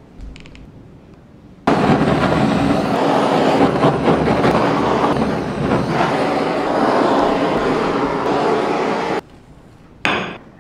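Kitchen blowtorch flame running steadily for about seven seconds, toasting meringue, starting and cutting off abruptly. A short scrape follows near the end as a knife cuts into the toasted meringue.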